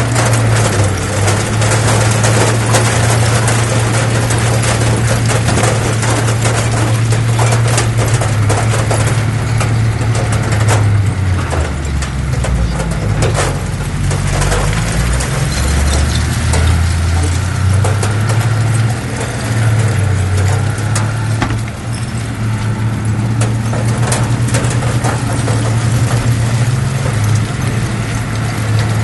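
Bulldozer's diesel engine running steadily, with clanking and rattling on top. About twelve seconds in, the engine note sags lower for a few seconds, as under load, then comes back up.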